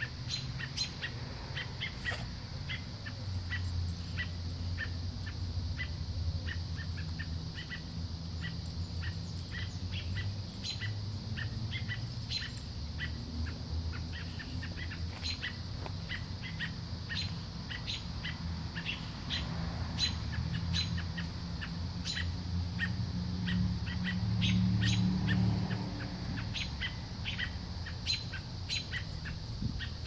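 American robins giving rapid, repeated sharp alarm calls: agitated parents scolding intruders near their fledglings. A low rumble underneath swells about three-quarters of the way through.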